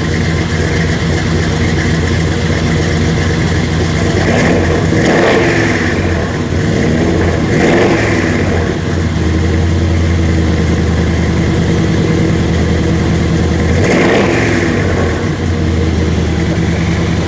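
Exhaust of a custom 1956 Chevrolet Bel Air restomod's engine idling, with the throttle blipped three times, each rev rising and falling back to idle.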